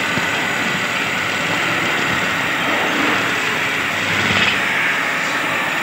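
Large wooden blank spinning on a motor-driven lathe while a long hand-held turning tool cuts into it: a steady rough cutting noise over the running machine, a little louder about four and a half seconds in.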